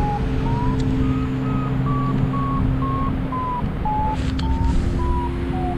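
Paragliding variometer beeping its climb tone, about two short beeps a second. The pitch rises over the first second or so and then falls steadily: the climb strengthens, then weakens. Steady wind rush on the microphone runs underneath.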